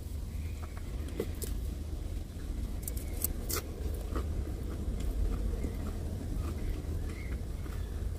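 Steady low rumble inside a vehicle's cab, with a few light clicks and taps between about one and four and a half seconds in, from eating with a plastic fork.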